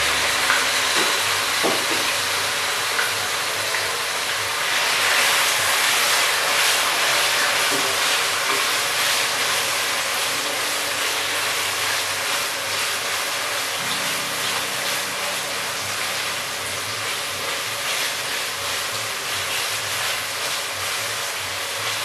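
Chicken breast pieces sizzling in hot cooking oil and sesame oil in a wok, a steady loud frying hiss. A spatula stirs the pieces in the later part.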